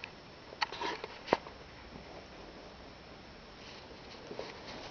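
A hand stroking a sleeping whippet's head in a quiet room: soft rustles and a few small clicks, the sharpest about a second and a half in, with a couple of faint ticks near the end.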